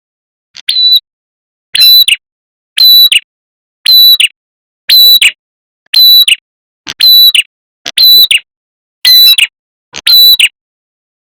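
Prenjak kepala merah bird call, played as a looped lure recording: the same short, sharp chirping phrase repeated about once a second, ten times.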